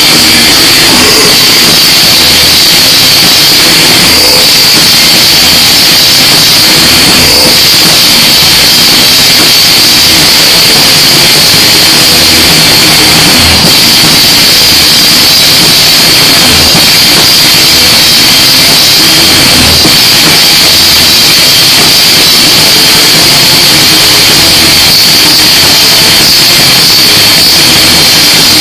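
Loud live metal music with drums, recorded so far into overload that it is clipped and distorted into a constant hiss, with bass-drum thuds coming through underneath.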